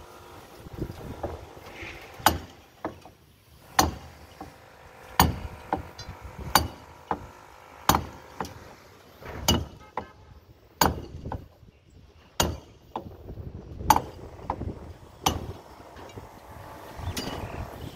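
A hand hammer struck again and again by a construction worker, about one sharp blow every second and a half, with lighter taps between the heavy strikes.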